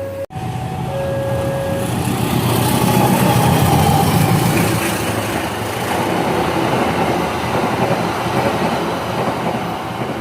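A train passing, its rumble and wheel noise swelling to a peak about four seconds in and then slowly fading. A held tone sounds over the first two seconds.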